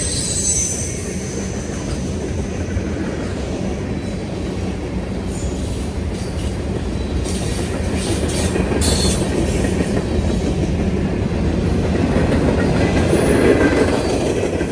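Freight train cars rolling past: a steady rumble of steel wheels on rail with clickety-clack. A high wheel squeal fades out at the start.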